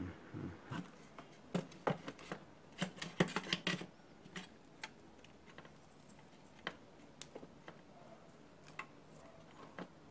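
Clicks, knocks and light metal rattles as a homemade battery charger in a sheet-metal computer power-supply case is handled and taken apart. The clicks come thick and fast for the first few seconds, then thin out to a few scattered ones.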